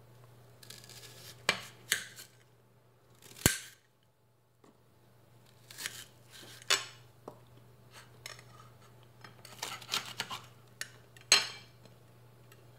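Hand-prepared chilies, shallots and garlic dropped into a plastic mini-chopper bowl, with knife work on a plate: a scatter of sharp clicks and clatters, the loudest about three seconds in, over a steady low hum.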